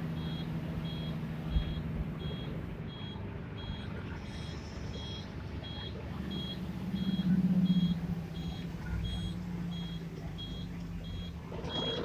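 Bus engine running on the move, with a high electronic beep repeating steadily about one and a half times a second. The engine note swells louder about seven seconds in, and a brief knock sounds about a second and a half in.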